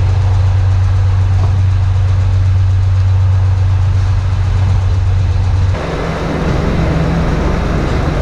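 An engine idling steadily with a loud low hum. About six seconds in, it gives way to a different steady drone with more hiss.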